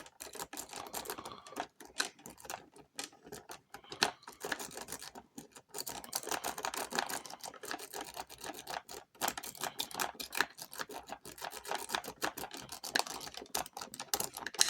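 Rapid, irregular clicking and scraping of a lock-pick rake being scrubbed in and out of the keyway of a Schlage SecureKey deadbolt cylinder, with a few brief pauses. The rake is run against the lock's pins and sliders under clockwise tension, and this side of the lock is stubborn and does not rake open.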